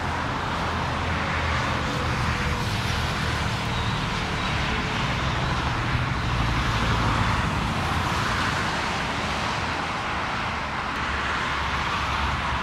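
Continuous jet engine noise from an Airbus A380 airliner, a steady rushing sound over a low rumble that swells slowly in level.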